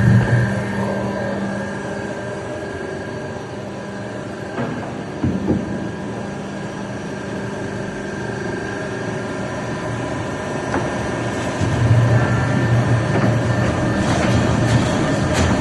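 Four-foot veneer peeling lathe running with a steady machine hum, a few knocks about five seconds in, and a heavier low hum from about twelve seconds on.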